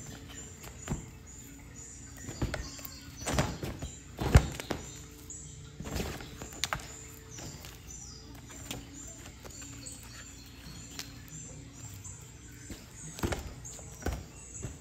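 A cat batting and biting at a wand toy inside a nylon pop-up play tunnel, heard as scattered knocks and rustles, the loudest about four seconds in. Background music runs underneath with a string of short, high chirps.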